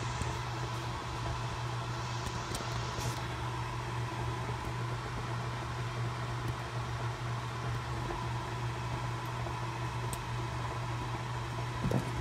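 Steady low mechanical hum, with a few faint clicks and rubbing sounds from a phone being handled.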